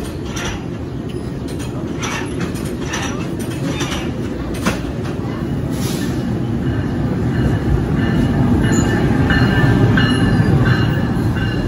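NJ Transit ALP-46A electric locomotive 4636 pulling a multilevel coach set into the station, its low rumble growing louder as it comes alongside. A thin high squeal from the wheels joins in about eight seconds in.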